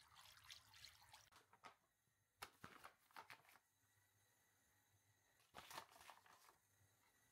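Faint handling sounds: soft clicks and rustles in two short clusters, about two and a half seconds in and again near six seconds, over near silence.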